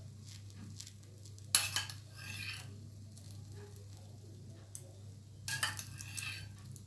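A kitchen utensil scraping and clinking against a frying pan in two short bouts, about a second and a half in and again near the end, over a faint sizzle of bread frying in oil.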